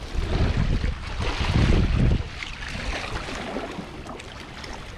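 Wind gusting on the microphone over the wash of sea water, strongest in the first two seconds and then easing.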